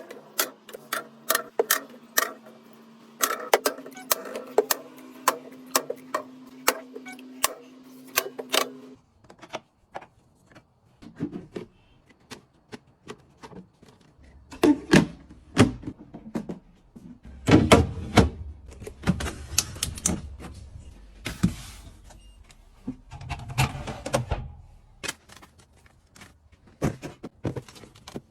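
Groceries being handled and put away: a long run of sharp clicks and taps of packaging and containers, over a steady hum for the first nine seconds, then rustling and heavier thuds.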